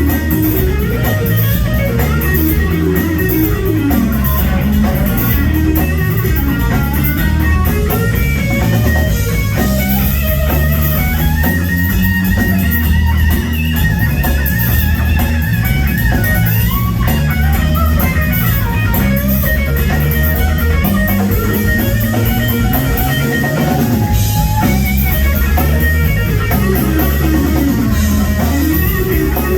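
Blues band playing a slow blues: electric guitar taking a lead with bent, wavering notes over bass guitar and a drum kit.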